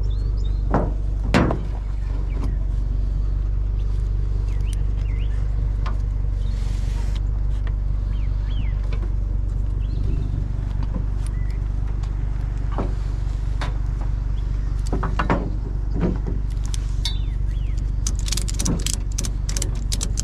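Truck engine running steadily, with scattered clicks and knocks over it: a sharp one about a second and a half in and a quick run of them near the end.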